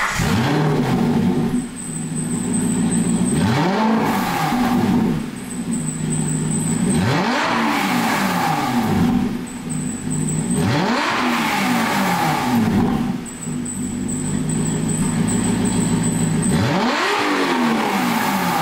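Aston Martin Vantage engine revving through a de-catted exhaust, with a cross pipe fitted in place of the secondary catalytic converters. About five quick blips, each climbing and falling back, come every three to four seconds, with the engine running steadily between them.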